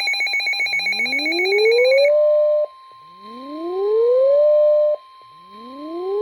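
Weather radio alert tones. A rapid warbling beep sounds until about two seconds in, then switches to the steady NOAA Weather Radio warning alarm tone. Over the steady tone, a rising whoop like a siren winding up repeats three times.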